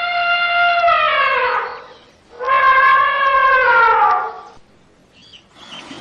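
Elephant trumpeting: two long, loud calls a little over half a second apart. The first holds a steady pitch and then slides down; the second rises slightly and falls away.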